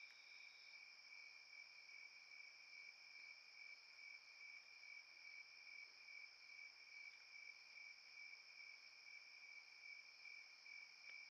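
Faint chorus of night insects such as crickets, several steady high-pitched trills at different pitches running together; one of the higher trills stops about a second in.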